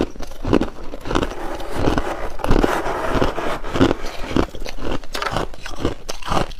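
Close-up bites into hard frozen ice, a sharp crunch about twice a second, with a longer grinding chew a little past the middle.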